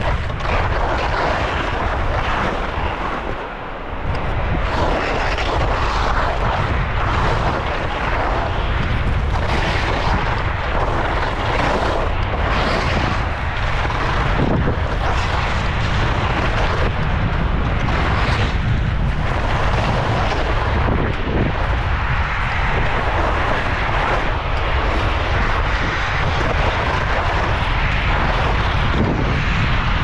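Wind rushing over the microphone while skis scrape and rasp over icy, hard-packed snow and moguls on a downhill run, with a brief lull about three to four seconds in.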